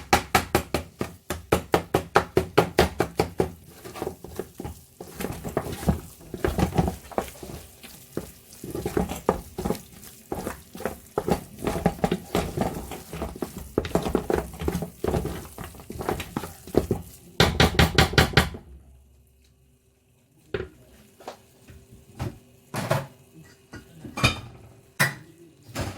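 A utensil knocking rapidly and repeatedly against a cooking pot, several strikes a second, stopping about eighteen seconds in; after that only a few scattered clicks.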